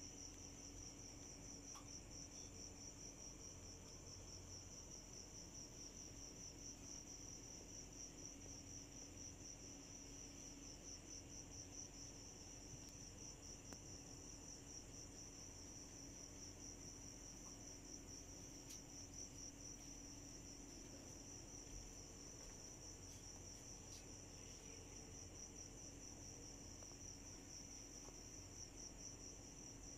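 Crickets trilling steadily: a faint, high-pitched, rapidly pulsing chirr, with a low steady hum beneath.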